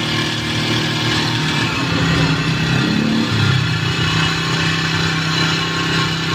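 Four-stroke backpack power sprayer engine running steadily, its note wavering and shifting briefly about two seconds in before settling again.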